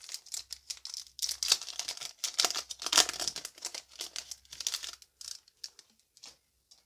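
Foil Yu-Gi-Oh! booster pack being torn open and its wrapper crinkled apart by hand: a dense crackling that is loudest about three seconds in and thins to a few faint rustles after about five seconds.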